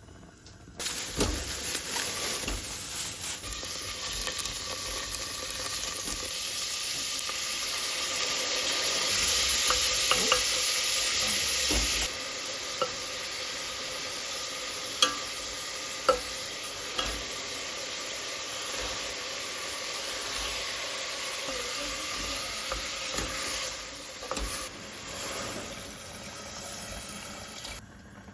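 Food sizzling as it fries in a pan. It grows louder for a few seconds, then drops abruptly about twelve seconds in, with a few sharp taps later on.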